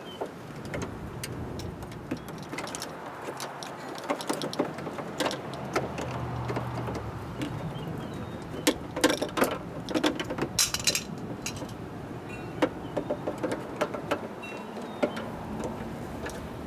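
Irregular plastic clicks, taps and rattles of wiring-harness clips and cables being pulled loose and moved aside inside a car door with its trim panel off, loudest around the middle, over a low hum for the first half.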